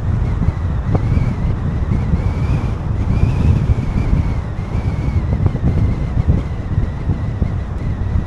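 Steady low rumble of a car driving, with wind buffeting the microphone.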